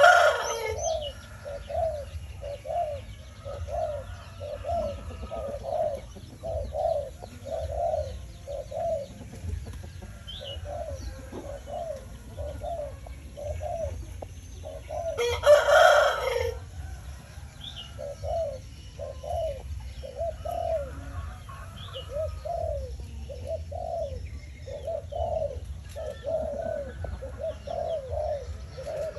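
Doves cooing, a steady run of low repeated notes at about one and a half a second, with small birds chirping faintly. Just past halfway a loud, harsh call about a second long cuts across the cooing.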